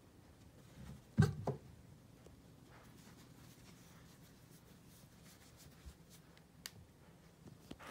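A tabby kitten jumping down from a cat tower, landing with a quick cluster of thumps about a second in; otherwise quiet room tone with a few faint clicks.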